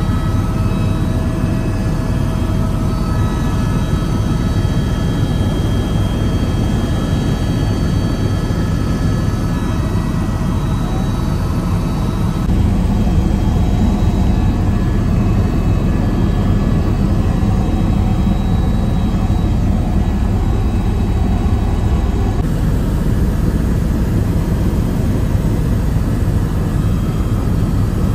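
Helicopter engine and rotors running in flight, heard from inside the cabin as a steady, loud drone.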